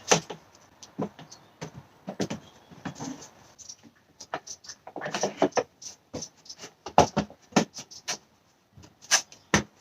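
Irregular sharp clicks and knocks of a plastic engine cover being handled and pressed back into place on its mounts, with the engine not running.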